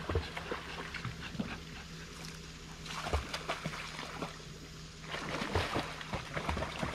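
Boston terrier whimpering, with water splashing as it jumps into a pool and paddles after a ball.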